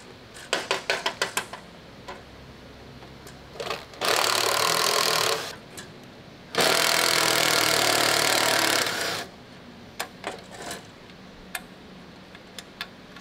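Cordless impact driver hammering at a rusted bolt on a steel tank dashboard in two bursts, the first about a second and a half long and the second about two and a half seconds. Before them come a quick run of metal clicks, and after them a few light metallic knocks.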